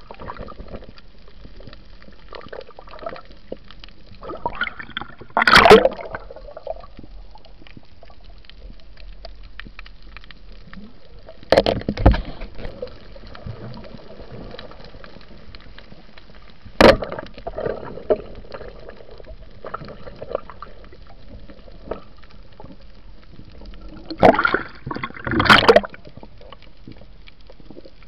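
Water gurgling and splashing during a night snorkel spearfishing dive, over a steady low hiss. Loud sudden splashes come a few times, with one single sharp knock about two-thirds of the way through and a cluster of splashes near the end.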